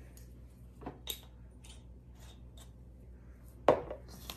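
Hands stirring and rubbing dry ground rice flour in a stainless steel bowl: a few soft scrapes and rustles, with one sharper knock against the bowl about three and a half seconds in.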